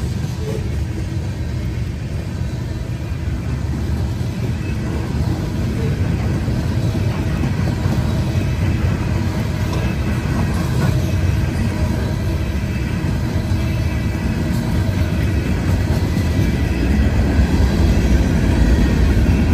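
Freight cars rolling past close by: a steady, dense rumble of steel wheels on rail, growing slightly louder toward the end, with faint thin high tones from the wheels running over it.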